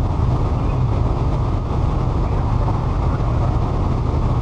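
Steady cockpit noise of an aircraft: an unbroken rumble of engine and airflow with a strong low hum.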